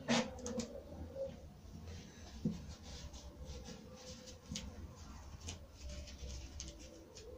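Faint scattered rustles and small ticks of masking tape being handled and pressed along the edge of a white-lacquered MDF drawer box, with one soft knock about two and a half seconds in, over a faint steady hum.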